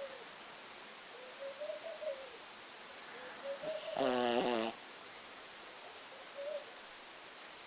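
Shih tzu snoring in its sleep: a few faint whistling breaths that rise and fall in pitch, and about four seconds in one louder, rattling snore lasting under a second.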